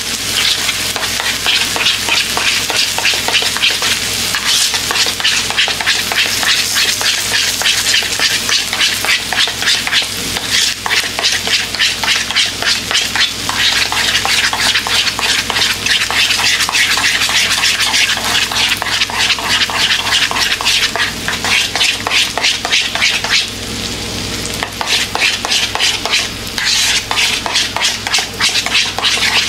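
A spoon stirring a thick mayonnaise-based burger sauce in a bowl: a quick, continuous run of wet scrapes and clicks that pauses briefly about four-fifths of the way through. Beneath it, burger patties sizzle steadily on a griddle.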